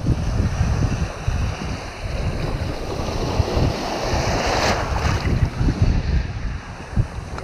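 Wind buffeting the microphone over the wash of small waves in shallow saltwater; about halfway through, a wave breaks close by with a rushing hiss that swells and fades.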